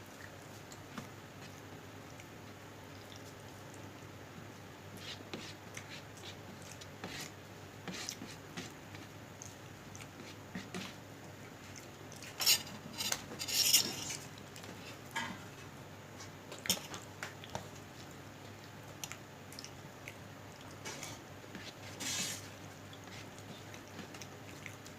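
Cutlery clinking and scraping on a plate during a meal: scattered light clicks, with a cluster of louder scrapes about halfway through and another near the end.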